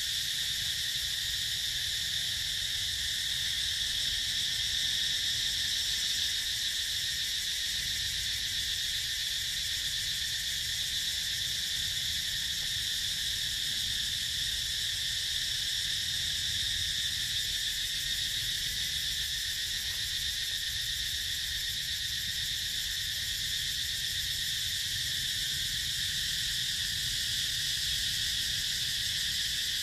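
Steady chorus of insects, an unbroken shrill drone that neither rises nor falls, over a low rumble.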